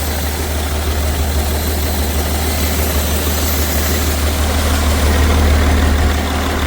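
BMW 330d's M57 straight-six diesel running at idle with a steady low drone, getting slightly louder about five seconds in. The engine is down on two or three cylinders, and the owner hears a failed turbo in it.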